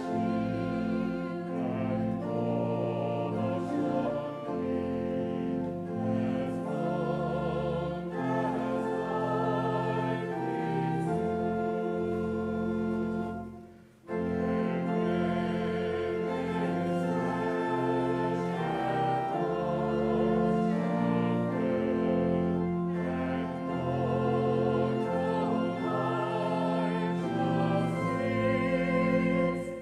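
Hymn sung by a church congregation over sustained instrumental accompaniment. The sung lines waver, and the music stops for a moment about halfway through, then resumes.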